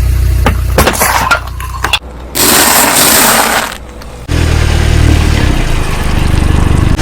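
A car engine runs with a low, steady hum while objects crack and crunch under the tyres, with several sharp cracks about a second in. In the middle there is a loud hiss lasting about a second, then the engine hum comes back.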